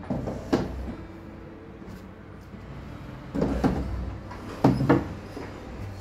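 Knocks and clunks of household objects or fittings being handled during cleaning. They come in three short clusters: at the start, about three and a half seconds in, and near five seconds.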